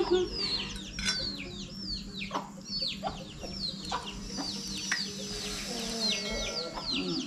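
Free-ranging young chickens peeping over and over in short, high, falling chirps, with a few lower clucks near the end.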